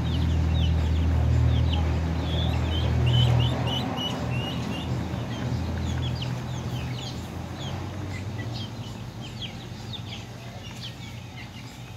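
Young chickens peeping, many short falling peeps that crowd together in the first half and thin out later. Under them a low steady drone is strongest at first and fades away about halfway through.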